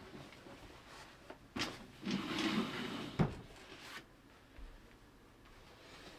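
Quiet handling and movement sounds in a small room: a light knock, a second or so of rustling, then another light knock, after which only faint room tone remains.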